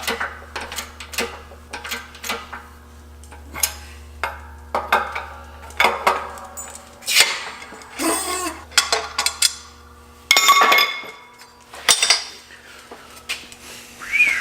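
Metal tools and parts clinking and knocking repeatedly, as when they are handled and set down on a workbench, with a louder noisy burst about ten seconds in and a steady low hum underneath that drops out for a few seconds in the middle.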